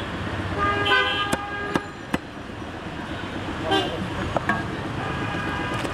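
Vehicle horns tooting in street traffic: a held horn note about half a second in, a shorter toot later, and faint ones near the end. Three sharp knocks come in quick succession just after the first horn.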